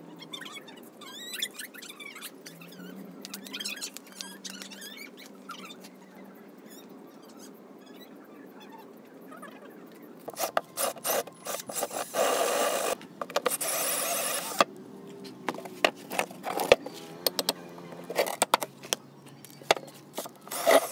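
Cordless drill driving screws into a wooden planter tray: a few short trigger bursts about ten seconds in, then a steady run of a couple of seconds, followed by knocks and clatter of the wood and tool being handled. Faint chirping of birds in the first half.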